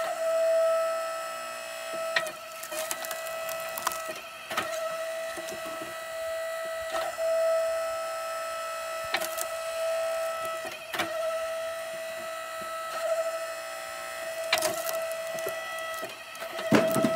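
Split Fire 1165 electric log splitter's motor whining steadily while it splits short hickory chunks, with a sharp crack of wood splitting apart every two seconds or so.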